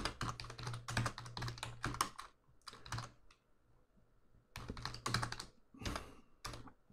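Typing on a computer keyboard: quick runs of key clicks, a pause of over a second near the middle, then a few more short runs.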